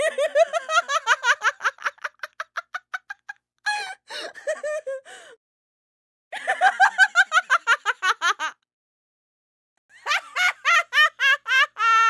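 A woman laughing: four separate stretches of rapid, high-pitched laughter, each a couple of seconds long, with short silences between them.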